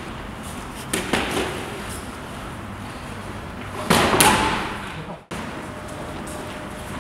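Boxing gloves landing punches in sparring: a couple of quick sharp hits about a second in, then a louder flurry of hits around four seconds in. The sound cuts out abruptly for an instant a little after five seconds.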